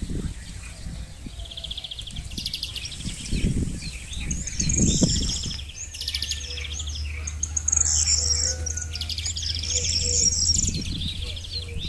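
Several small birds chirping, with repeated fast trills and short high calls throughout. Low rustling comes in brief bursts close by.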